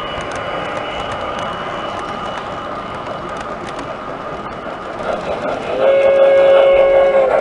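O-scale model trains running on the layout, a steady rolling noise with a faint whine, then about six seconds in the train's sound system gives one steady chime-like horn blast about a second and a half long.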